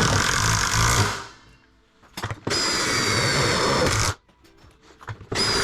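Power drill driving self-tapping tek screws through a steel strut into a garage door section. It makes three short runs of about a second to a second and a half each, with a steady motor whine that drops slightly in pitch as each run starts.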